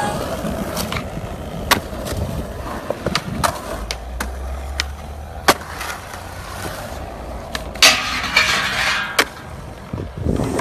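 Skateboard wheels rolling on smooth concrete, with a series of sharp clacks as the board pops and lands. A louder hissing stretch comes about eight seconds in.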